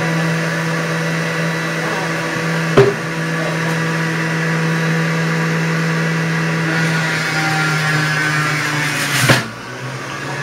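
Juiceman electric juicer's motor running with a steady hum as produce is pushed down the feed chute and shredded. Two sharp knocks come about three seconds in and near the end; after the second the hum briefly drops, then steadies.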